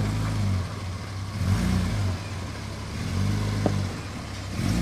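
Toyota Land Cruiser FZJ80's 4.5-litre straight-six engine working under load as the truck crawls over rough trail, its revs rising and falling a few times, with one sharp click about three and a half seconds in.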